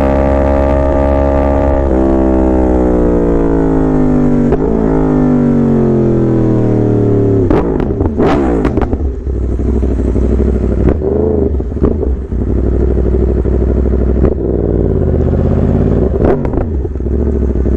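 Yamaha R1 inline-four sport bike engine running loud, its pitch falling steadily for about seven seconds as the revs drop. It then revs up and back down several times in short swells.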